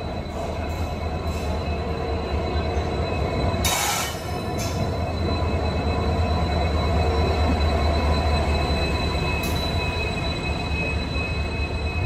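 Indian Railways WDP4D diesel-electric locomotive, with its EMD 16-cylinder two-stroke engine, running slowly along the platform with a deep steady rumble and a steady high-pitched whine. A brief hiss sounds about four seconds in.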